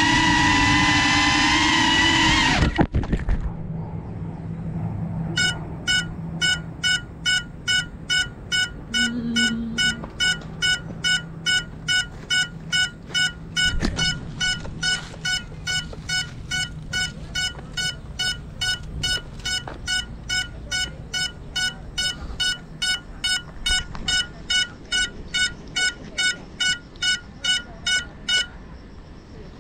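FPV cinewhoop's motors and propellers whining high, then cutting off abruptly with a clatter as the drone crashes. After a pause, the crashed drone's lost-model buzzer beeps steadily, about twice a second, until it stops near the end.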